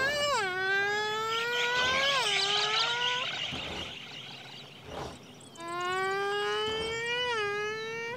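Two long wailing cries, each held for a few seconds with a slowly rising pitch broken by sudden dips, the first fading about three seconds in and the second starting about two seconds later, over a faint high insect-like buzz.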